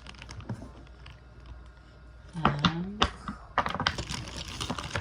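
Irregular light clicks and taps, sparse at first and busier in the second half, with a short low vocal sound about halfway through.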